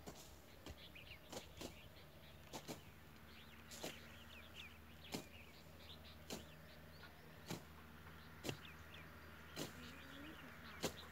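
Strokes of a hand blade slashing grass and brush, sharp and evenly spaced at about one a second, with faint bird chirps in the first half.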